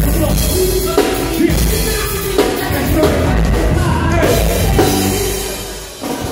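Live band playing with a drum kit and singing. The music fades down briefly about six seconds in, then picks up again.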